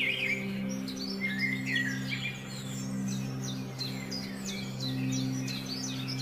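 Small birds chirping and twittering in quick repeated calls, over a low sustained musical drone that swells and fades.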